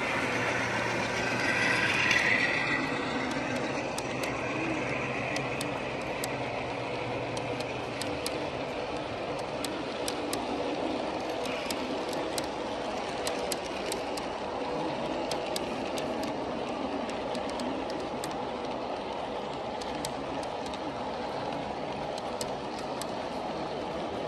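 A long G scale model freight train rolls past: a steady rolling rumble of the cars' wheels on the track, with many sharp clicks scattered through it. In the first few seconds the passing diesel locomotive's motor hum is also heard, fading out by about eight seconds in.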